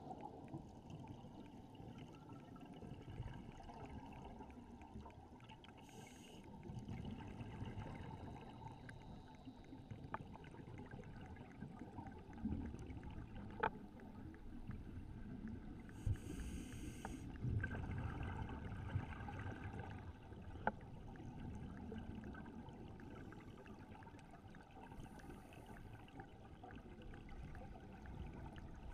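Underwater sound of scuba divers: a muffled low rumble with scattered sharp clicks, and short hissing bursts of regulator exhaust bubbles a few times, about 6, 16 and 25 seconds in.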